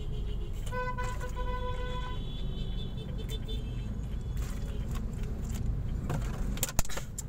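Low, steady rumble of a car idling in a traffic jam, heard from inside the cabin. About a second in, a vehicle horn honks twice: a short toot, then a longer one. A sharp click comes near the end.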